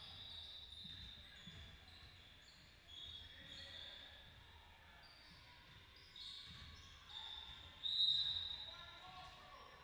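Basketball game in a gym: a ball bouncing on the floor and sneakers squeaking in short high squeals, with faint voices in the hall. About eight seconds in comes a louder, sharp high-pitched tone.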